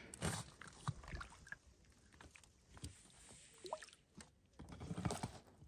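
Faint sloshing and light splashing of lake water as a trout is released over the side of a small boat, with scattered small knocks and clicks.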